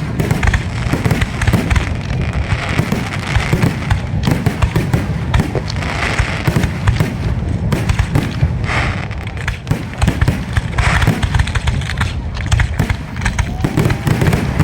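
Fireworks going off in rapid succession: a dense, continuous run of bangs and crackling pops with no real break.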